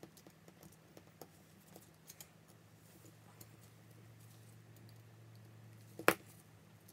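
Light clicks and taps of tweezers and a precision screwdriver against an iPhone 6 and a silicone repair mat, with one much louder sharp click about six seconds in. A faint low steady hum runs underneath.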